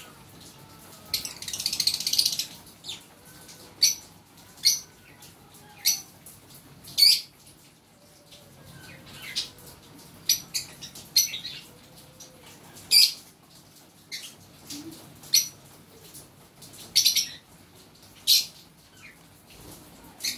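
Fischer's lovebirds chirping: short, sharp, high-pitched chirps about once a second, with a longer, noisier burst of sound about a second in.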